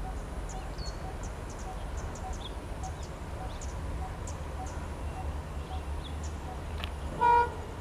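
A short, loud blast of an ALCO WDM3D diesel locomotive's horn near the end, as the train approaches through the tunnel, over a low rumble and bird chirps.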